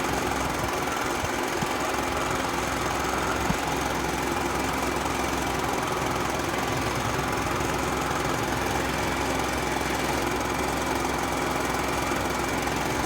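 Leaf blower running at a steady speed, blowing air into a charcoal barbecue to fan the coals alight, with one small knock about three and a half seconds in.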